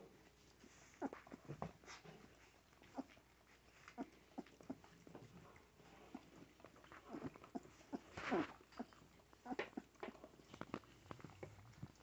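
Young puppies giving faint whimpers and squeaks, with one louder, wavering squeal about eight seconds in, among soft scattered rustling.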